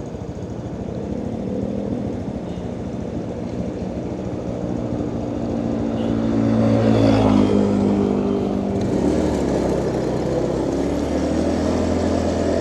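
A vehicle engine running close by, growing louder about six seconds in, then cutting off suddenly at the end.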